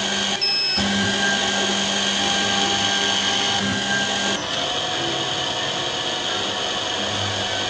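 Lens drilling machine's spindle motor running steadily while drilling holes in an eyeglass lens, a steady high-pitched whir over a low hum. Near half a second in, the hum briefly drops out and a short high tone sounds.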